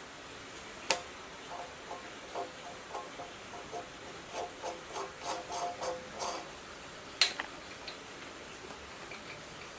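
Light metallic taps and clinks of small parts and tools being handled, irregular ticks with a short ring, bunched in the middle. Two sharper clicks stand out, one about a second in and one about seven seconds in.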